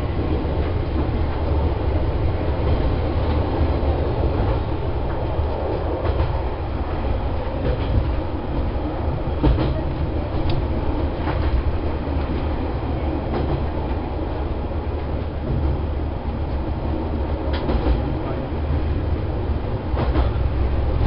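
Diesel railcar running along the track, heard from inside the cab: a steady low engine and wheel rumble, with scattered sharp clicks as the wheels pass over rail joints.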